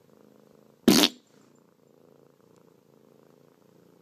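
Domestic tabby cat purring softly and steadily, broken about a second in by one short, loud burst of sound.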